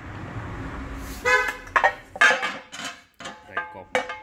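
Metal plates of a Tiger electric grill pan being handled and knocked together: from about a second in, a quick series of clanks, each ringing briefly at the same pitch.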